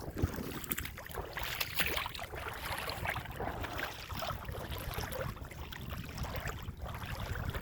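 Shallow seawater splashing and lapping in a steady, irregular wash, as something moves through it.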